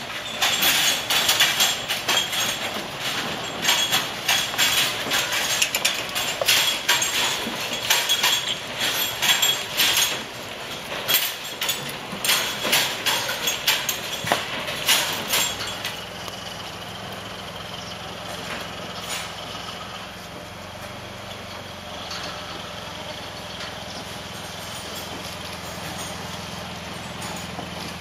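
Hooves of a herd of goats clicking and shuffling as they crowd out onto the yard, many sharp clicks that thin out about halfway through, leaving a steady low hum.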